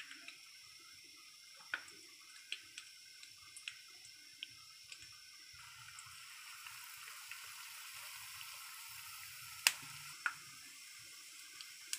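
Metal spoon clicking now and then against the bowl as chicken is scooped from the batter. About halfway in, battered chicken starts frying in hot oil with a faint, steady sizzle, and two sharp clicks of the spoon come near the end.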